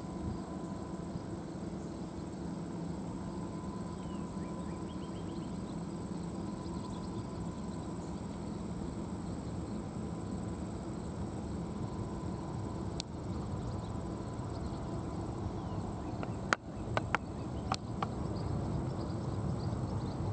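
Insects trilling steadily in a high, thin tone over a low rumble that grows a little toward the end. A few sharp clicks come in a cluster near the end.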